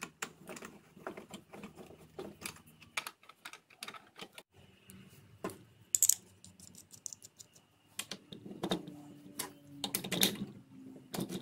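Irregular clicks and light clatter of small hard-plastic machine parts being handled and fitted: a black plastic hold-down bracket with a threaded knob being put onto a router table's fence. The sharpest click comes about six seconds in.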